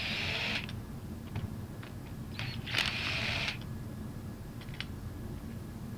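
Cordless impact gun running in two short bursts, one right at the start and one about three seconds in, as it backs out the bolts holding a diaphragm pump's suction manifold.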